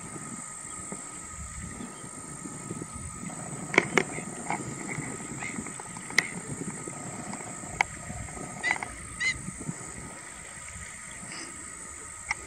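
Whiskered terns calling from a resting flock: short, sharp calls scattered through, some in quick pairs, the loudest about four seconds in. A steady high-pitched hum runs underneath.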